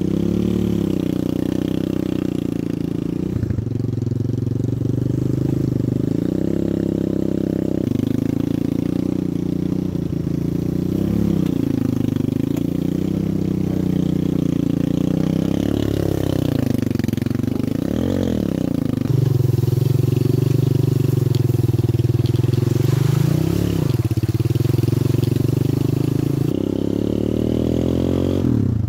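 Chinese 250cc ATV quad bike engine running under way, its pitch rising and falling as the throttle is opened and eased off.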